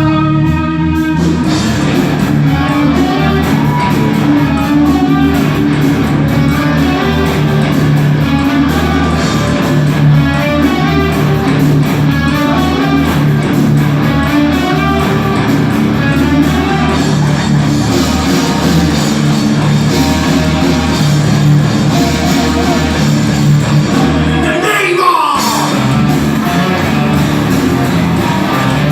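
Live rock band playing loudly: distorted electric guitars over bass and drums. Near the end a guitar slides down steeply in pitch.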